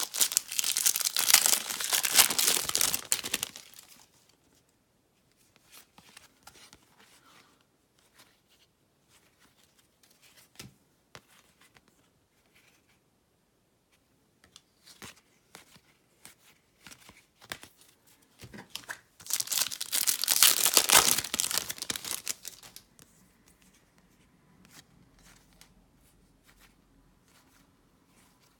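Trading-card pack wrappers being torn open and crinkled twice: a few seconds of ripping at the start and again about twenty seconds in. Faint clicks and rustles in between.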